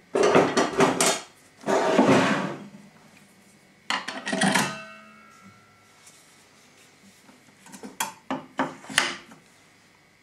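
Kitchen handling noises while baking: a run of clattering knocks, a rustling scrape, then a metallic clink that rings briefly, and a few light taps near the end.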